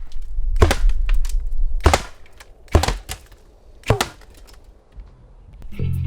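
Quickfire round of apple cannon shots, apples smashing into a MacBook Pro: four sharp cracks about a second apart. Music comes in near the end.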